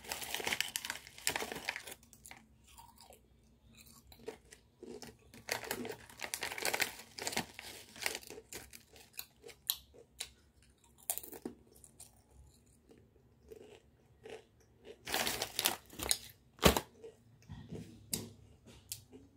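A child chewing and crunching spicy Piattos potato crisps in irregular bites, with the foil chip bag rustling as he takes more chips.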